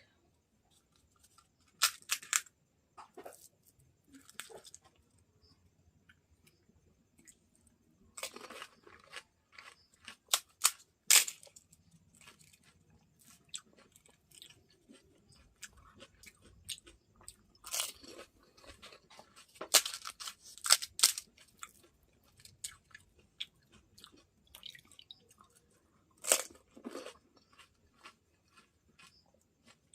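Close-up crunching and chewing of crisp golgappa (pani puri) shells filled with spicy water, in irregular sharp crunches with quieter chewing between them.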